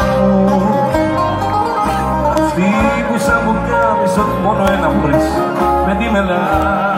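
Live band playing Greek popular music, loud and continuous, with a plucked string instrument carrying the melody over bass and drums, heard from among the audience.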